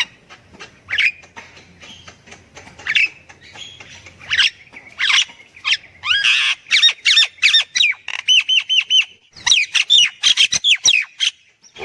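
Myna calling: a string of harsh squawks, clicks and down-slurred whistles that grows busier about halfway through, with a run of four or five quick repeated whistled notes and then rapid chattering near the end.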